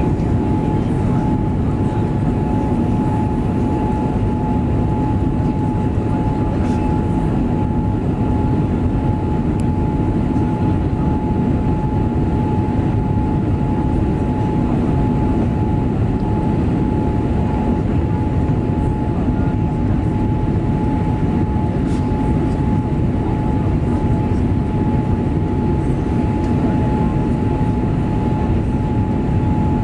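Boeing 787-8 airliner's jet engines and airflow during the takeoff climb: a loud, steady noise with a constant high whine from the engines.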